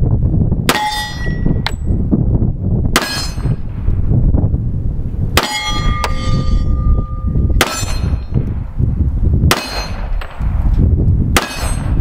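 Six shots from a Springfield 1911 .45 ACP pistol, spaced about two seconds apart. Steel plate targets clang after some hits and ring on with a sustained tone. Wind buffets the microphone throughout.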